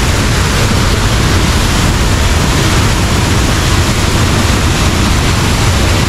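Powerful waterfall plunging into its pool close up: a loud, steady rush of falling and crashing water.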